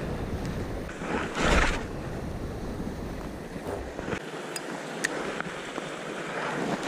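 Sea wind buffeting a wearable camera's microphone over waves washing against the rocks, with a louder rush about one and a half seconds in; the deep wind rumble drops away past the middle.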